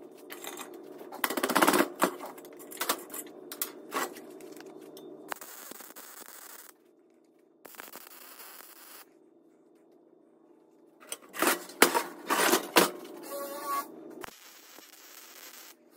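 MIG welder arc crackling and spitting while welding a steel exhaust pipe, in two spells of a few seconds each, with a steady hum between them.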